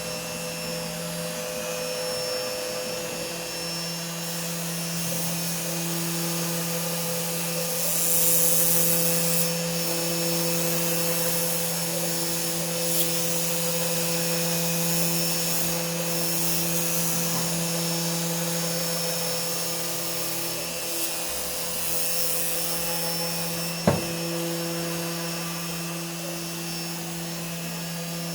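CNC machine running: a steady motor hum, with a higher tone that keeps switching on and off as the axes move. There is a brief louder rush of hiss about 8 seconds in and a single sharp click near 24 seconds.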